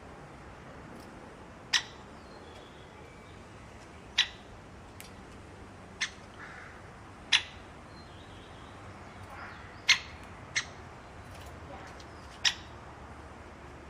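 A bird giving short, sharp chip calls, seven in all at irregular intervals of one to two and a half seconds, over a steady background hiss.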